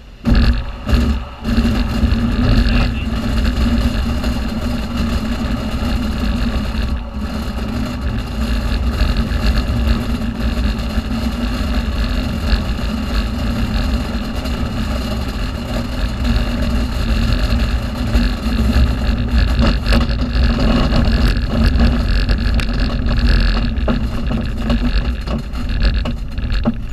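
Glider's single main wheel rolling over a grass strip after touchdown: a loud, steady rumble and rattle through the airframe that starts suddenly.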